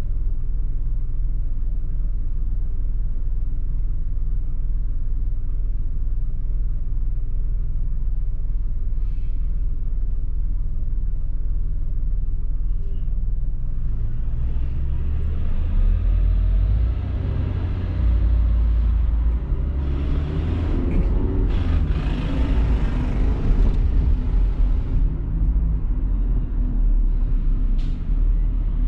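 Low, steady traffic rumble heard from inside a car's cabin while stopped in traffic. About halfway through the engine and road noise grow louder and change in pitch as the traffic, including a city bus alongside, pulls away.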